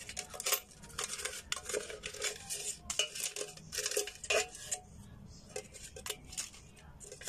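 Wooden chopstick scraping and knocking against the inside of a cut-open tin can, a quick irregular run of clicks and scrapes on the metal as folded banknotes are prised out.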